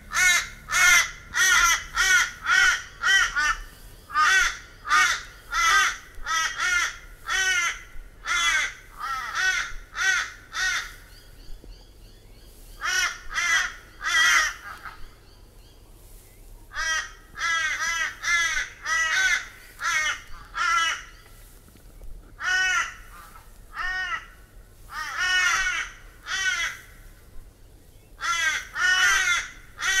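Australian crow cawing: harsh caws in quick runs of several, with pauses of a second or two between runs.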